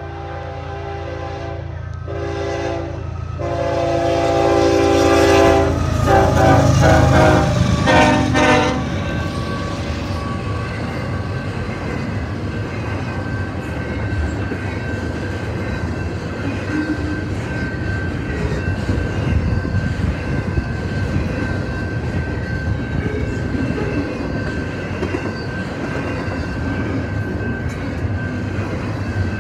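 Canadian Pacific freight locomotive's multi-chime air horn played as a horn show: two short blasts, a long one, then a rapid run of short choppy toots. About nine seconds in the horn stops and the train passes at speed, its wheels and cars running with a steady rumble and clickety-clack.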